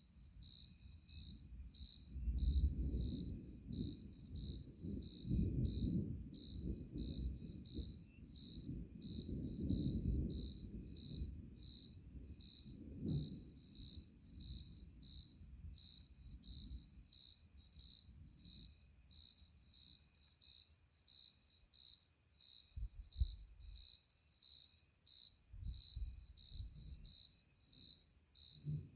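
Crickets chirping steadily in a regular pulse of about two chirps a second. Under them a low rumble swells and fades through the first half and comes back in shorter bursts near the end.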